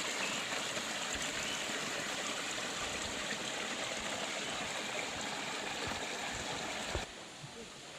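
Running water flowing steadily, an even rushing hiss that drops away abruptly about seven seconds in.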